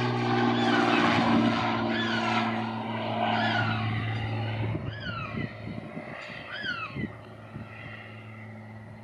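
High-wing, single-engine propeller floatplane flying past and away, its engine drone steady in pitch and fading steadily as it goes.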